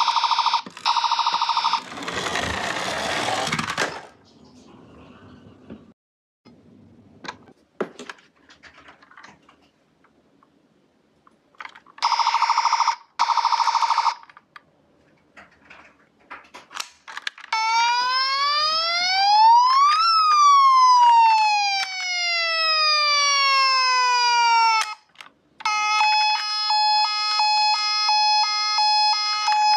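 Electronic sirens of toy ambulance minicars sounding one after another. There is a short buzzy siren at the start and another about twelve seconds in, with clicks and a brief rattling noise between them. Then comes one long wail that rises for a couple of seconds and falls slowly, and near the end a steady, pulsing electronic beeping tone.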